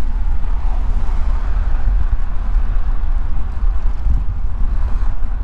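Wind buffeting a camera microphone on a moving bicycle: a loud, unbroken low rumble with a steady rush of air over it.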